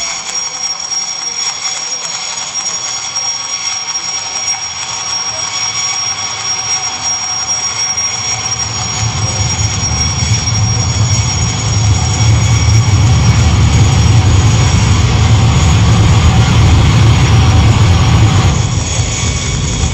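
Live electronic noise-drone music: a dense hissing wash with steady high whistling tones, joined about halfway through by a deep rumbling low end that swells and grows louder.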